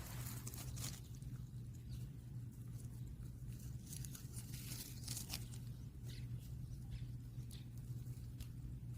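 A puppy chewing a jujube: irregular crunching and smacking clicks, some close together, over a steady low hum.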